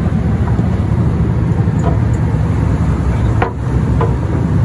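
Fishing boat's engines running with a steady low rumble, with a couple of light knocks about three and a half seconds in.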